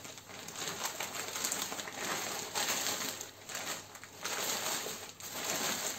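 Plastic courier mailer bag being torn open and crumpled by hand: an irregular crackling rustle of plastic film, with a few brief pauses.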